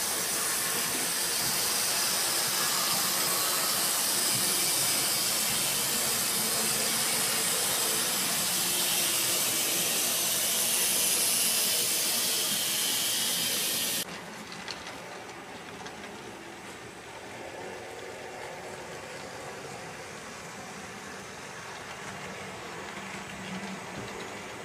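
Steady hissing rumble of HO scale model trains running on the layout's track. It cuts off abruptly about 14 seconds in, leaving a quieter running noise.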